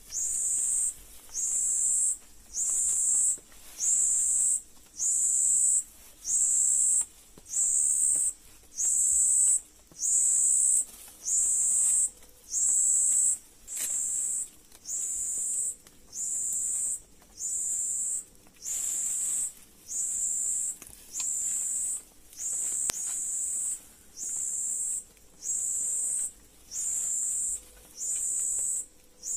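An insect calling: a high, buzzing note repeated in regular pulses about once a second, each pulse under a second long and opening with a quick downward slide.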